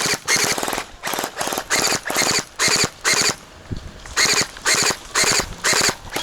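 Electric gel blaster firing on full auto in many short bursts, each a fast rattle of shots, about two bursts a second.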